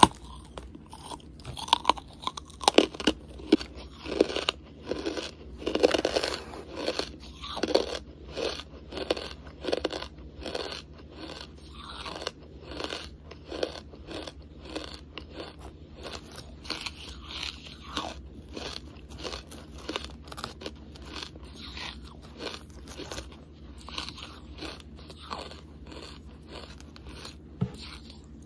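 Close-miked crunching and chewing of hard charcoal: sharp crunches as pieces are bitten off, then steady chewing at about two chews a second. The chewing grows fainter in the second half.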